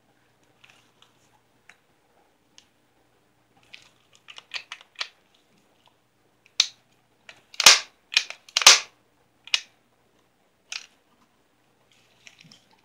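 Clicks and knocks from handling an all-polymer CO2 non-blowback air pistol: scattered light clicks, a quick run of them about four seconds in, then about half a dozen sharp, louder clacks between six and eleven seconds in.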